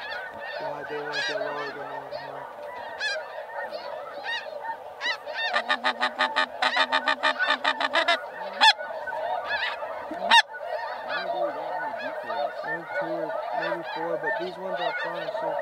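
Large flock of snow geese calling, a dense chorus of high honks that turns into a fast, clattering run of calls between about five and eight seconds in. Two sharp clicks come near the middle.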